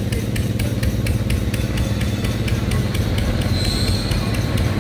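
Manx Electric Railway electric tram car moving slowly off around a curve: a steady low hum with a fast, even ticking over it, and a brief high squeal about three and a half seconds in.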